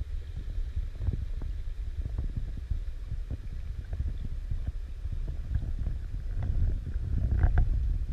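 Wind buffeting the camera's microphone: a continuous low rumble with irregular crackles, growing stronger in the last couple of seconds.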